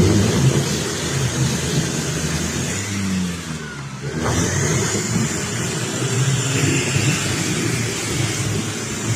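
Off-road 4x4's engine revving under load, its pitch rising and falling, over rough rumbling noise. The level dips briefly about four seconds in.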